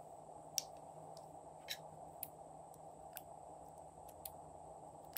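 A handful of faint, sharp clicks and snips about a second apart, from plastic lipstick tubes being handled and scissors cutting lipstick into slime, over a steady low background hum.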